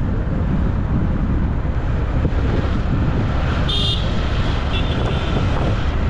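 Steady rumble of wind buffeting the microphone and road noise while travelling in a moving vehicle, with a brief high-pitched beep a little before four seconds in.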